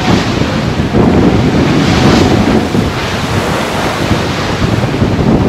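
Wind buffeting the microphone over the rush and splash of water along the hull of a sailboat heeled hard and beating upwind through steep chop. Surges of spray hiss come near the start and again around two seconds in.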